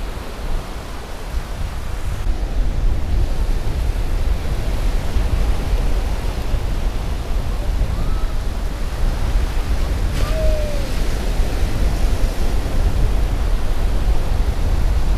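Wind buffeting the microphone in a heavy, steady low rumble over the continuous wash of surf breaking on the beach. A brief faint gliding note sounds about ten seconds in.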